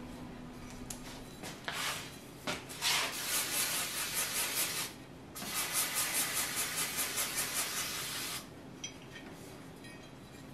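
Aerosol spray can being shaken: a rhythmic rattling hiss of about three or four strokes a second, in two spells broken by a short pause, stopping a little past the middle.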